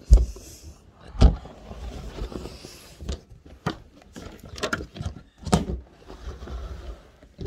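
Irregular knocks, thumps and rustling of things being moved and handled while tidying, with low rumbling from a handheld camera being bumped about.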